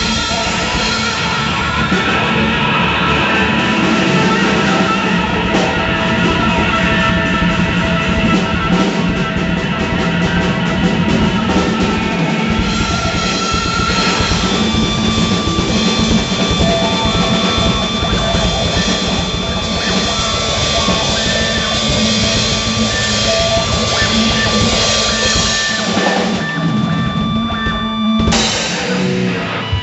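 A heavy metal band playing live: a Sonor drum kit, bass, and electric guitar from a Dean Hardtail Select through a Fender 1971 Vibrosonic Reverb amp. The playing shifts abruptly just before the end.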